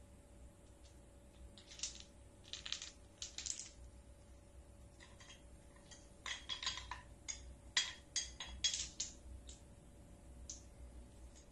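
A raccoon batting a small hard object around on a stone tile floor. The object and its claws make light clicks, taps and scrapes: a short run of them about two seconds in, then a denser run from about five to nine seconds in.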